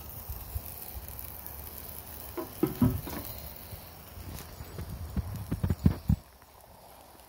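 Thick porterhouse steak sizzling over hot charcoal on a mini grill, with dull knocks and thumps, a cluster about two and a half seconds in and a quick run of them between five and six seconds in.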